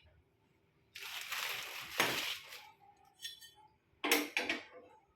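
Handling noise from a gas stove burner being set up: a scraping rustle lasting under two seconds, then a couple of short clinks about four seconds in.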